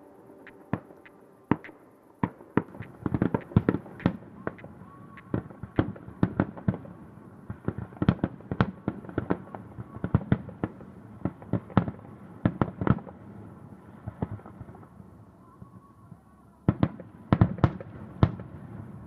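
Fireworks display heard from a distance: a rapid, irregular series of shell bursts going off as bangs, each trailing a short echo. The bangs thin out briefly, then come back as a last cluster of the loudest ones near the end.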